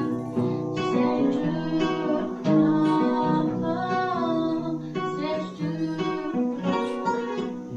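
Acoustic guitar strumming chords, with a few strums a second and the chords changing about every second, playing out the end of the song.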